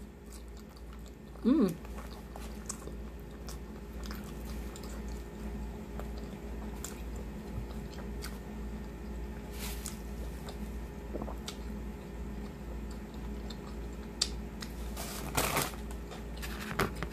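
Chewing and biting of a pulled pork sandwich with crunchy onion rings and pickles, with small wet mouth clicks. A short burst of paper rustling comes near the end.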